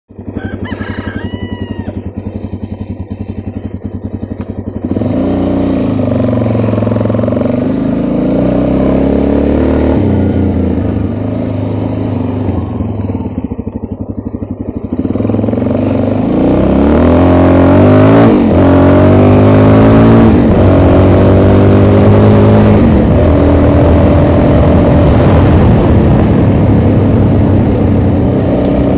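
Motorcycle engine running evenly, then pulling away about five seconds in and accelerating through the gears, its pitch rising and dropping back with each shift, getting louder again about fifteen seconds in.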